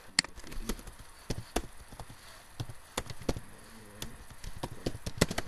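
Computer keyboard and mouse clicking: single sharp clicks spaced unevenly, with a quick run of keystrokes near the end.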